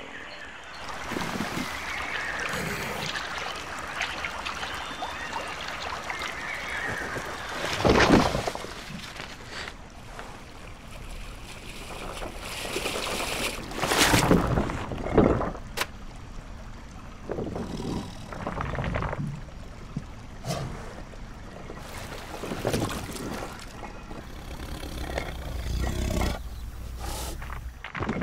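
Water sound effects: splashing and gurgling, with a few louder surging splashes, the loudest about eight seconds in and again around fourteen seconds.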